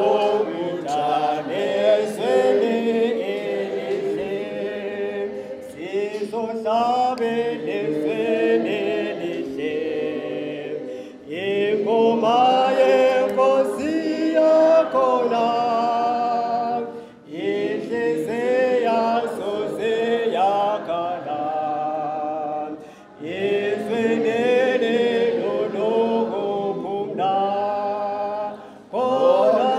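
A group of voices singing together unaccompanied, in harmony, in phrases of about six seconds with short breaks between them.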